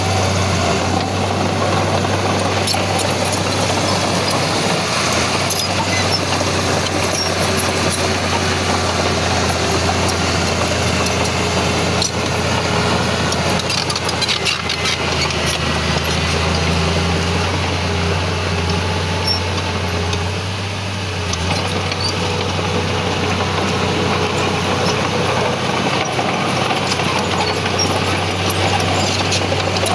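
Heavy diesel earthmoving machinery running steadily under work, with a low engine drone and a brief drop in level about two-thirds of the way through.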